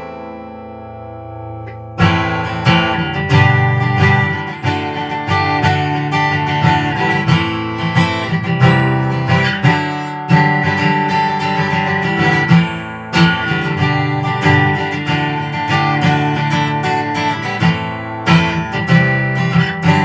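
Martin acoustic guitar playing chords, heard amplified through its onboard pickup's internal microphone, which is set to low gain with the low-pass filter on. One chord rings and fades at the start, and about two seconds in steady chord playing begins with frequent attacks.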